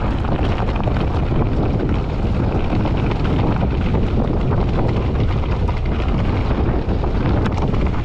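Wind rushing over the microphone of a mountain bike's onboard camera during a fast downhill run on a rough dirt trail, mixed with tyre rumble and quick rattles from the bike over the stony ground.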